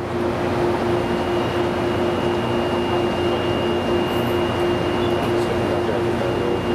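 A train running past on the rails: a steady rumble of wheels and cars, with a steady low drone from the train under it and a faint thin high tone from about a second in.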